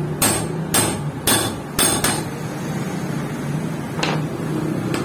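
Hammer blows on metal with a short ring: four quick strikes about twice a second, then a single strike a couple of seconds later, over a steady machine hum.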